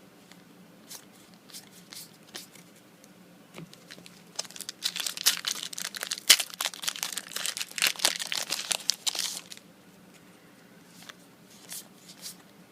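Yu-Gi-Oh booster pack wrapper being torn open and crinkled, with a dense run of crinkling for about five seconds in the middle. Scattered light taps and card handling come before and after it.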